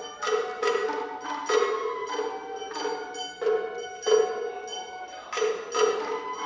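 Japanese dance-accompaniment music: a run of plucked string notes with strikes on small hand-held tsuzumi drums, several notes a second.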